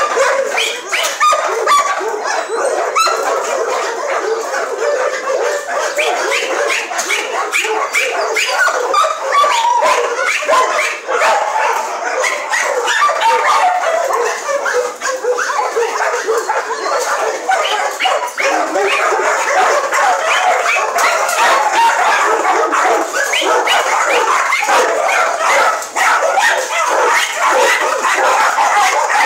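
A pack of dogs barking and yelping over one another without a break, a dense, loud chorus.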